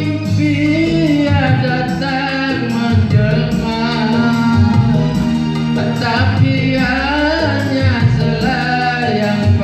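Live music: a male singer singing into a microphone over electronic keyboard accompaniment, amplified through a PA.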